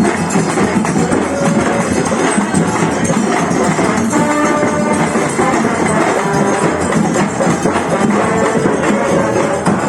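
Loud live music from a street procession, carried by a dense, steady beat of hand percussion, with a few held notes from a pitched instrument or voices partway through.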